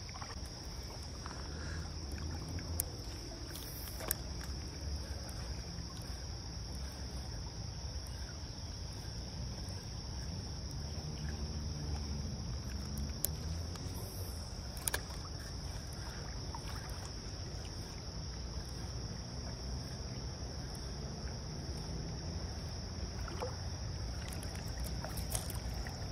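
Steady rush of fast, muddy creek water swollen by rain, with a constant high-pitched hum of insects over it and a few faint clicks.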